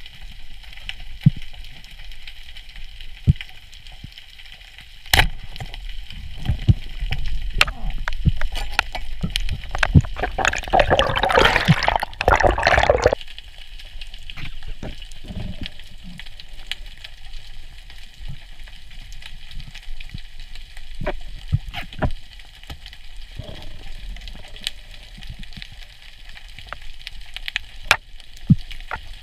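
Underwater ambience picked up by a camera in its housing: a low muffled rumble and hiss with scattered sharp clicks and knocks. About ten seconds in, a loud bubbling gurgle lasts roughly three seconds and then stops abruptly.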